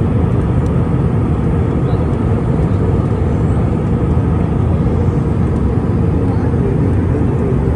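Steady, low cabin noise of a jet airliner in flight, heard from inside the cabin beside the wing: engine and rushing-air noise with no changes.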